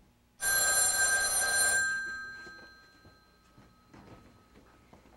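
Telephone bell ringing once. The ring starts suddenly about half a second in, lasts about a second and a half, then dies away.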